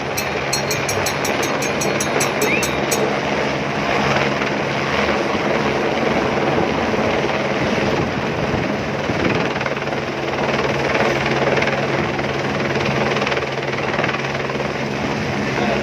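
Airbus AS350 single-engine helicopter hovering low and then climbing away, its rotor and turbine running loud and steady. A fast, high-pitched ticking sounds over the first three seconds.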